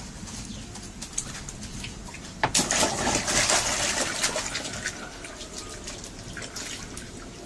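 Water splashing and sloshing in a plastic basin as a bird's wet feathers are rubbed off by hand. It starts suddenly about two and a half seconds in and slowly dies down.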